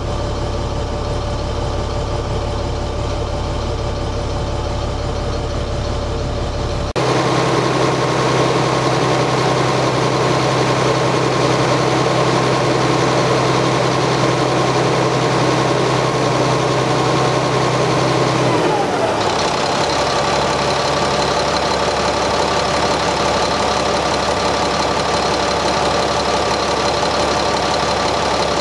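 Caterpillar 3126B six-cylinder diesel idling steadily, running strong after its injection actuation pressure control valve was replaced. The sound changes abruptly about seven seconds in, and again near twenty seconds in with a falling pitch.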